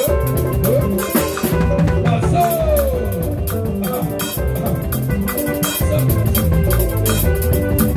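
Udu clay pot drum played by hand together with an electric bass guitar and other percussion, in steady, rhythmic band music. A few short sliding notes come in, with one longer falling slide about two and a half seconds in.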